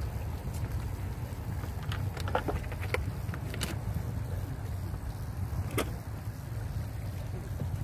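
Steady low rumble of a small fishing boat at sea, with a few sharp clicks and knocks about two to three seconds in and again near six seconds in.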